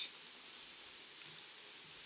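Faint steady background hiss with no distinct sound event.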